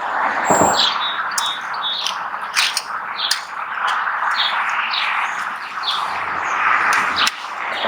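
Birds chirping: many short repeated calls over a steady background hiss.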